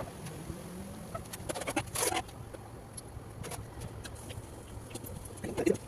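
Small scattered clicks and taps of desk work, with a short louder rustle about two seconds in, over a low steady hum.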